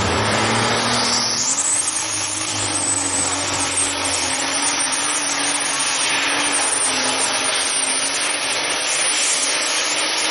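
Pulling tractor's engine revving up about a second and a half in as the pull starts, then running loud and flat out at full throttle.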